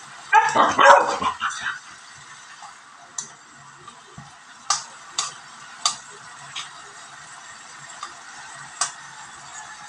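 A dog barks several times in quick succession about half a second to a second and a half in. After that, a spatula clicks and scrapes against a wok a handful of times as chopped bottle gourd and chicken are stirred.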